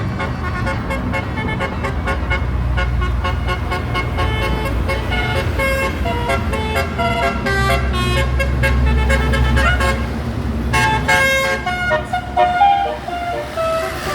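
Bus telolet horns playing quick runs of shifting musical notes over the steady low running of the bus engine, busiest and loudest near the end.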